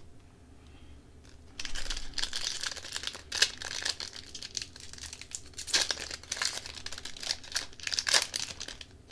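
A Tim Hortons Upper Deck hockey card pack wrapper being torn open and crinkled, starting about a second and a half in, with a few sharper crackles.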